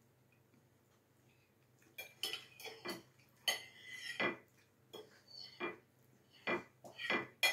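Ceramic plate and cutlery clinking and scraping on a stone tabletop during a meal: quiet at first, then a run of irregular clinks and scrapes from about two seconds in.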